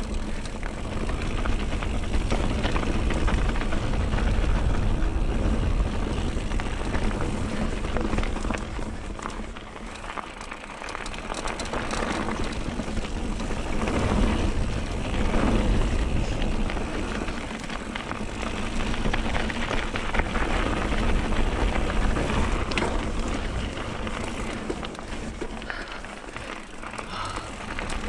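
Mountain bike rolling fast down a loose gravel and stony trail: knobbly tyres on the stones and the bike rattling, under a steady wind rush on the camera's microphone. It swells and fades with the riding speed, dipping twice.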